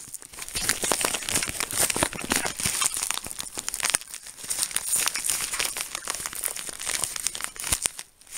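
Mailing envelope crinkling and rustling as it is handled and pulled at by hand, in dense crackly bursts with a short lull about halfway through.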